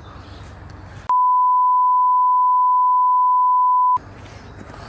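A steady, pure one-pitch censor bleep near 1 kHz, about three seconds long, starting about a second in and cutting off sharply. It replaces all other sound while it plays, the edit used to blank out speech, typically swearing.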